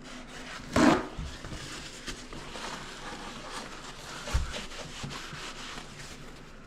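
Hands working on a wooden cabinet: a loud knock about a second in and another thump near the middle, with scraping, rubbing and small clicks between.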